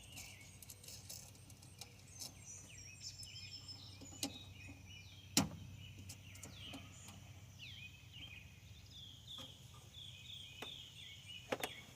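Songbirds chirping in the background, repeated short falling calls, with a few scattered clicks and knocks of work on metal parts, the sharpest about five seconds in.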